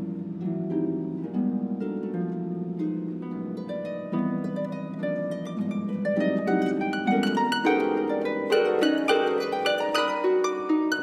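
Four concert pedal harps playing together, a quick stream of plucked notes over a low ringing bass. About four seconds in, higher notes join, and the music grows busier and louder toward the end.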